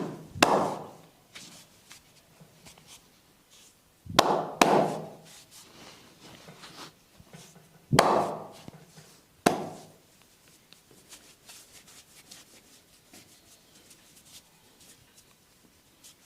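Sharp percussive hand strikes on the body during a massage, coming in pairs about every four seconds, three pairs in all. Faint small ticks and rustling follow in the last few seconds.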